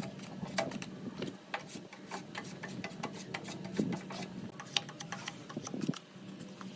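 Irregular light clicks and taps, several a second, over a steady low hum, typical of hand work on small parts in a workshop.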